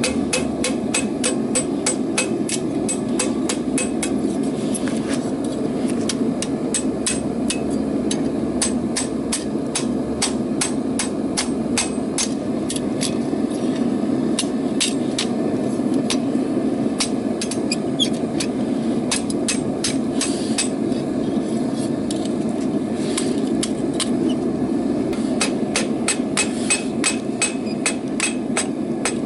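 Hammer blows on hot rebar over an anvil, struck in a quick steady rhythm of about three to four a second, with a couple of brief breaks, over a steady rushing noise.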